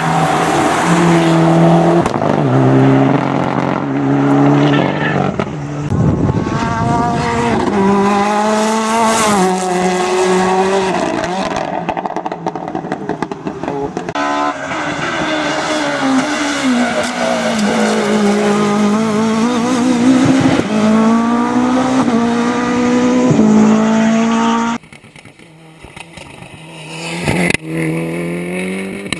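Rally cars' engines at full throttle racing uphill, revving up through the gears with a drop in pitch at each shift, rising and falling as each car comes past. Near the end the engine sound drops away to a quieter, more distant level.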